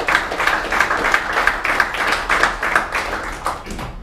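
Audience of a few dozen people applauding, a dense patter of hand claps that thins out and stops just before the end.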